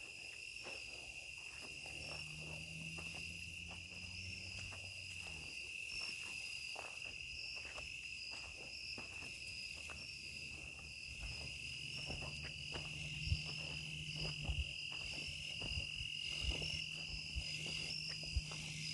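A steady chorus of crickets trilling in high, continuous bands, with faint scattered clicks and knocks, the sharpest about thirteen seconds in, and a faint low hum at times.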